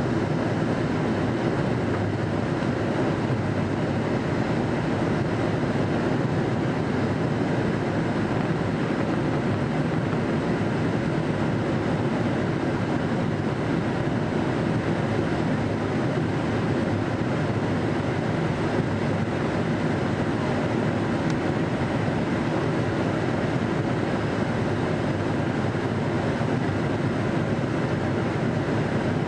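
Steady, unchanging rushing drone of a vehicle in motion.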